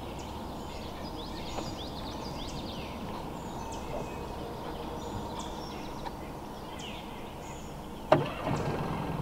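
Small birds chirping and calling over a steady low background rumble. About eight seconds in there is a sharp knock, and then a low hum starts.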